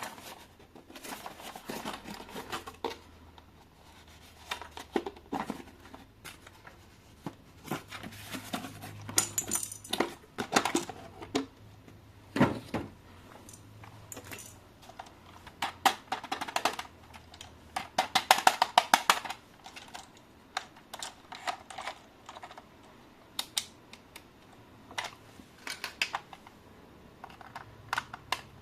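Irregular clicks, taps and crinkling of plastic toy parts and packaging being handled during an unboxing, with a few sharper knocks.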